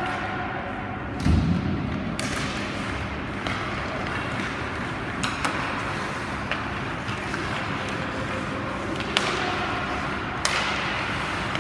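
Ice hockey play in a rink: steady rink noise with a low thud about a second in, like a body or puck against the boards, and a few sharp clacks of stick and puck later on.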